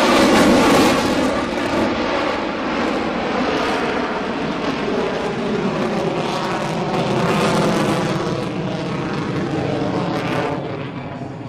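Lockheed Martin F-22 Raptor's twin Pratt & Whitney F119 turbofan engines running at high power in afterburner during a flyby maneuver, with a sliding, sweeping tone as the jet moves past. Loudest about a second in, fading away near the end.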